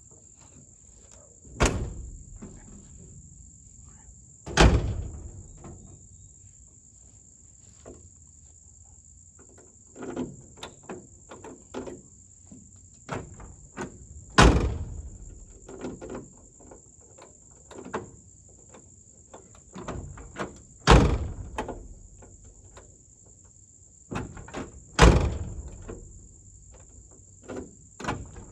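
Door of a 1971 Chevy C10 pickup being shut five times with heavy thunks, with lighter clicks and rattles of the latch and handle in between.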